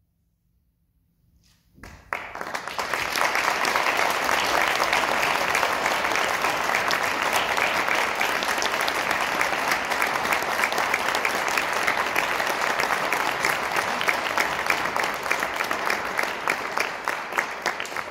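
Audience applause that breaks out about two seconds in, after a short silence, then carries on as steady, dense clapping.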